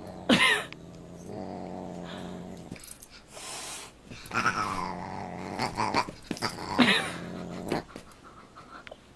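A dog and a Siamese cat play-fighting: low, steady growling in long stretches, broken by several short, sharp cries.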